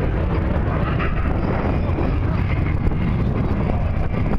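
Thunderbirds F-16 fighter jets' engine noise as the solo pair pass overhead: a loud, steady low rumble.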